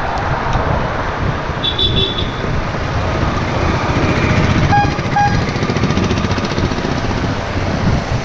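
Wind rushing over a bicycle-mounted action camera's microphone, with road traffic and a motor scooter overtaking close by. A vehicle horn gives two short toots about five seconds in, and a brief high beep sounds about two seconds in.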